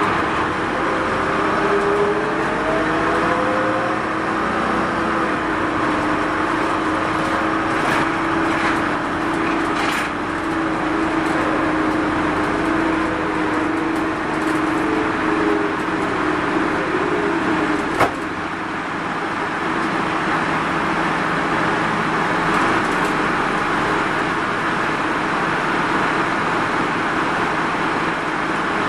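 Running sound inside a Mitsubishi Fuso Rosa minibus, with its diesel engine and drivetrain pulling away. A whine rises over the first few seconds, then settles into a steady cruising tone. About eighteen seconds in the tone fades with a sharp click, leaving only road rumble and hiss as the bus coasts.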